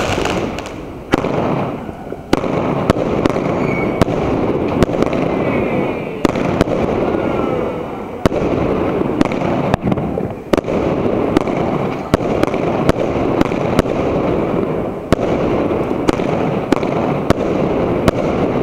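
Fireworks display going off close by: a dense, continuous crackle from gold crackling stars, broken by sharp bangs at irregular intervals, roughly one or two a second.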